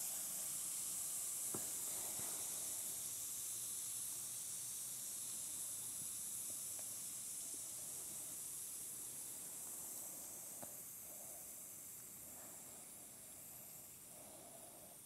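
Steady high fizzing hiss of a dissolved bath ball's last carbon-dioxide bubbles in a bowl of water, slowly fading away, with a few faint ticks and small water sounds as a figure is lifted out.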